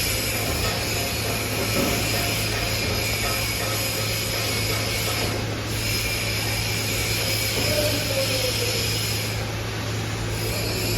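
Forging press machinery running steadily: a constant low hum under dense mechanical noise, with no distinct blows.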